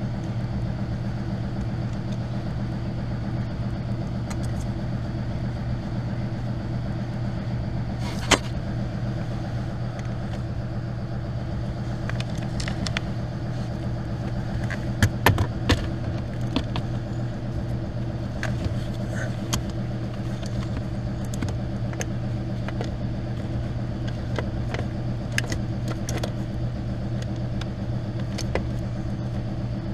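Ford Fiesta's engine idling steadily, with scattered light clicks. There is a sharp knock about eight seconds in and a few louder knocks around the middle.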